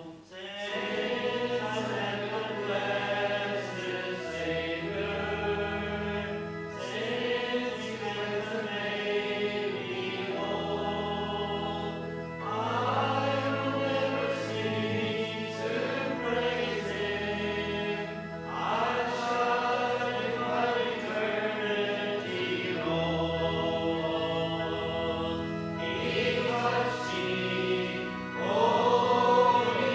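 Congregation singing a closing hymn with instrumental accompaniment, held chords in the bass changing every few seconds under the singing.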